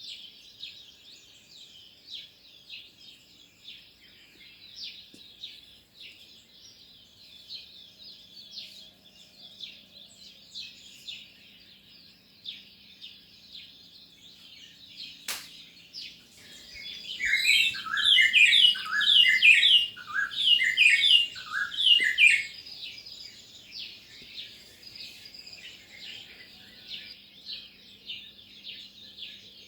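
Many small birds chirping continuously. A little past halfway, one louder bird calls a quick run of falling notes for about five seconds. There is a single sharp click about halfway.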